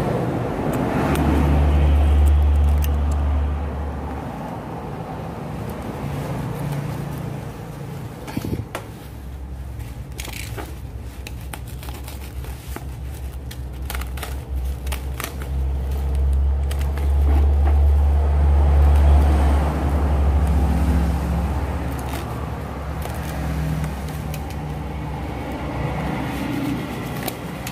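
Black plastic courier bag crinkling and rustling as it is slit open with a box cutter, with sharp crackles and clicks, mostly in the middle. Underneath runs a low engine-like rumble of vehicle traffic, swelling loudest near the start and again about two-thirds of the way through.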